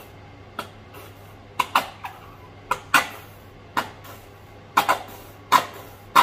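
Light, irregular clinks and knocks of utensils and dishes being handled while food is plated, about a dozen short taps with a little ringing after each, over a steady low hum.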